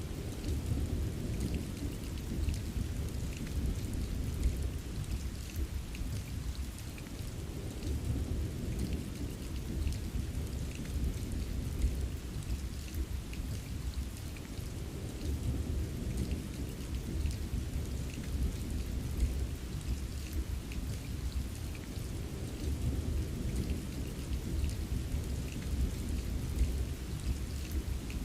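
Steady rain with a continuous low rumble of thunder underneath and faint scattered drop ticks.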